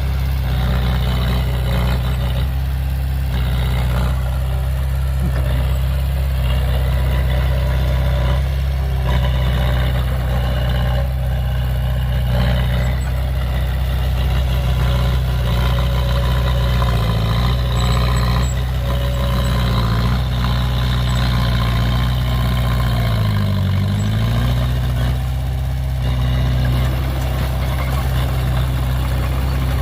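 Heavy dump truck engine running steadily at idle. Its pitch dips and comes back up briefly about two-thirds of the way through.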